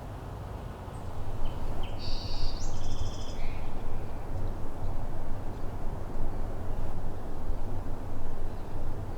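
Outdoor ambience: a steady low rush that swells about a second in, with a bird giving a brief run of high chirping calls about two seconds in.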